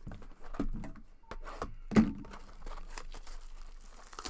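Cellophane wrap being torn and crinkled off a cardboard trading-card hobby box, with irregular crackles and knocks of the box being handled, the loudest a sharp knock about two seconds in.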